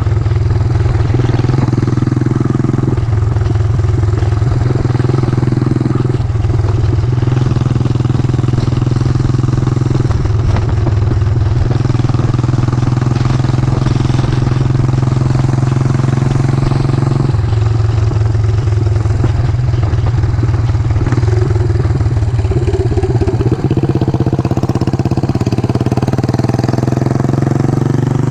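Yamaha SR400's air-cooled single-cylinder four-stroke engine running steadily while riding, its note changing every few seconds as the throttle is worked.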